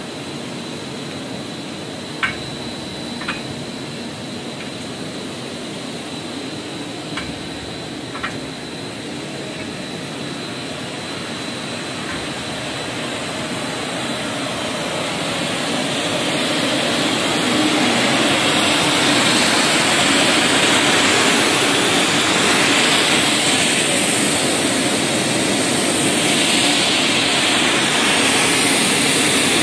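PET monofilament extrusion line running: a steady machine noise with a few sharp clicks in the first several seconds. From about halfway a loud rushing hiss builds up and then holds steady.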